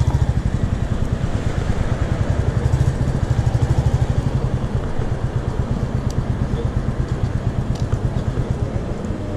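Motorcycle engine running under way, a fast, even pulsing note with road and wind noise over it.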